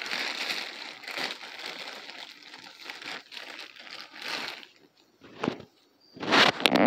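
Plastic food packaging crinkling and rustling as it is handled, easing off after about four and a half seconds, then a click and a louder crinkle near the end.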